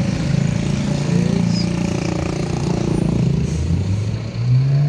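Motor vehicle engines running on the street, a steady hum with an engine note that rises about four seconds in as a vehicle speeds up.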